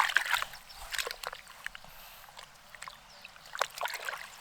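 Hands working in shallow muddy water: scattered short splashes and wet slaps, a few louder ones about a second in and near the end.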